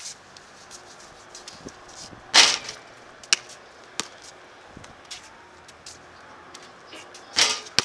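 Basketball game sounds: scattered sharp knocks and slaps on the court, with two louder bangs about two and a half and seven and a half seconds in.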